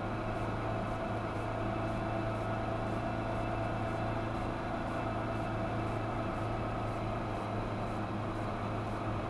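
1984 Chevy S10 pickup's engine running steadily under load as the plow truck climbs a snowy driveway, heard from inside the cab as an even, unbroken drone.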